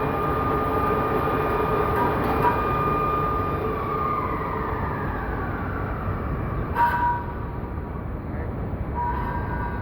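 Metal-turning lathe running, with a steady high whine over the machine's noise. The whine slides lower in pitch about four seconds in, and a short metallic squeal sounds about seven seconds in.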